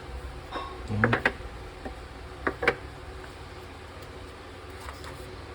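Clicks and knocks of a knife box and packaging being handled and opened on a table top: a cluster about a second in, then two sharp clicks around two and a half seconds.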